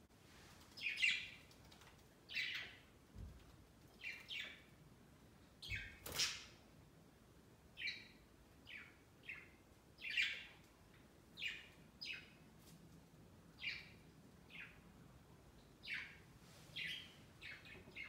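Budgerigars chirping: short calls about once a second, with a single sharp click about six seconds in.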